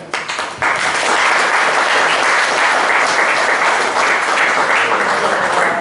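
Audience applauding: a few scattered claps at first, then full, steady applause from about half a second in.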